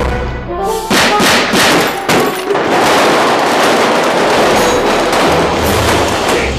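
Gunfire from a film soundtrack played over a hall's speakers: several separate shots about a second in, then a dense, continuous volley, with music underneath.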